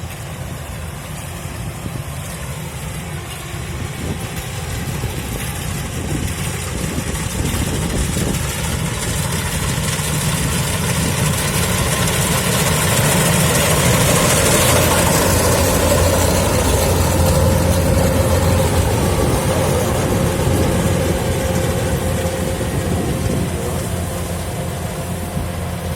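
Kubota DC-105X combine harvester's diesel engine running steadily, together with the noise of its threshing machinery. It grows louder toward the middle as the machine comes close, then fades as it moves away.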